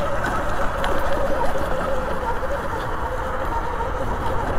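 Sur-Ron electric dirt bike on the move: a steady, slightly wavering electric motor whine over a continuous rushing noise.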